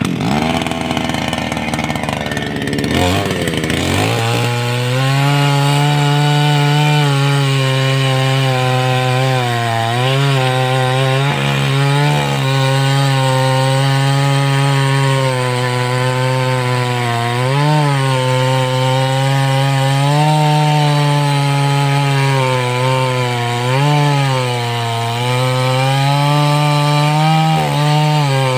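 A 588X two-stroke chainsaw running at high throttle, sawing through a log. It cuts in abruptly, sounds rough for the first few seconds, then holds a steady high drone. The pitch sags briefly a handful of times as the chain bogs down in the cut.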